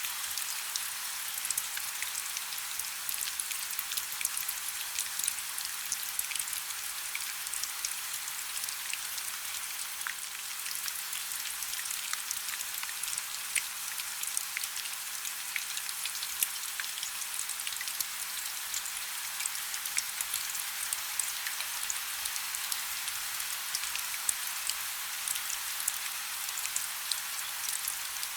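Steady rain falling: an even hiss with many small, distinct drop ticks scattered through it, and hardly any low rumble.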